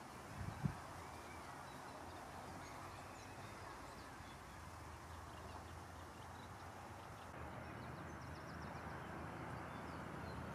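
Wind moving through a reedbed: a steady, soft rustling hiss, with a few low buffets of wind on the microphone about half a second in. Faint, short high bird chirps come through in the second half.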